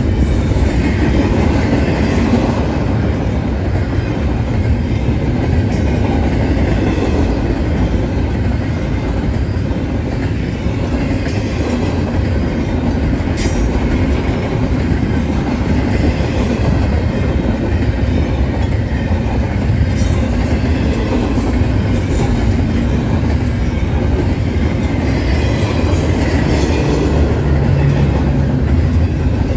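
BNSF double-stack intermodal freight train rolling past at a grade crossing: steady running noise of the container well cars, with wheels clicking over rail joints and a few sharp clanks scattered through.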